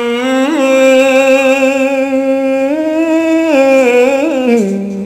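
A single voice chanting smot, Khmer Buddhist chanted poetry, in long held notes with wavering, ornamented turns, stepping up in pitch and then falling to a lower held note near the end.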